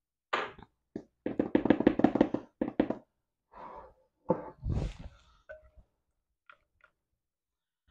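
A utensil stirs and scrapes thick vanilla pudding in a glass mixing bowl, knocking against the glass in quick clusters. There is a heavier thunk about four and a half seconds in and two faint taps near the end.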